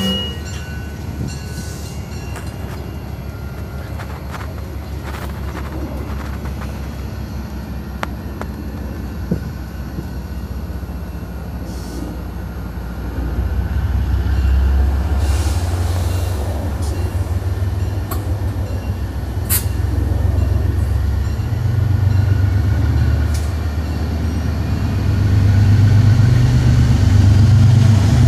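Train rolling by on the rails: a steady low rumble with scattered clicks and knocks. A heavier low drone builds from about halfway and is loudest near the end.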